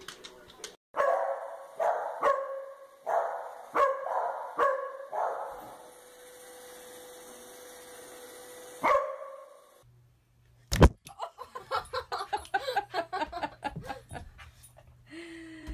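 Corgis barking. About eight sharp barks come in the first five seconds over a steady faint hum, with one more bark near nine seconds. After a loud knock about eleven seconds in, a fast string of short yapping barks follows.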